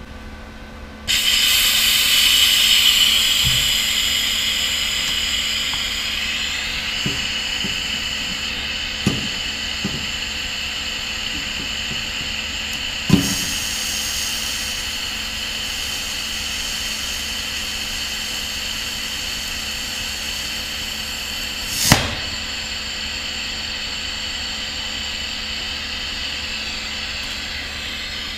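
Lift-TIG welding arc from a Sherman DigiMIG 200 Dual Puls inverter welder: the arc strikes about a second in and burns as a steady hiss with a high whine, loudest just after it strikes. A few sharp clicks sound during the weld, the loudest about 22 seconds in, and the arc cuts off just before the end.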